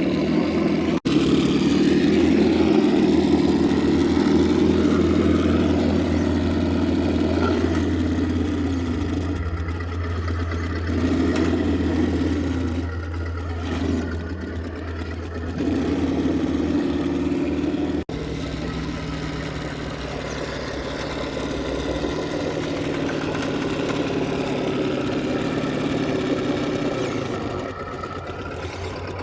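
Axial SCX10 II RC crawler's electric motor and geared drivetrain whirring as it crawls, swelling and easing with the throttle.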